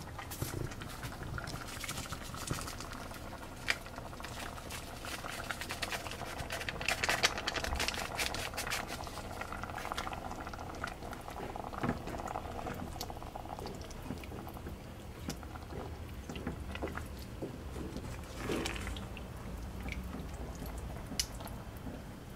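A wooden spoon stirring thick tomato-and-bean chili in a stainless steel pot on the stove: wet, sloppy stirring with scattered clicks of the spoon against the pot, busiest near the middle.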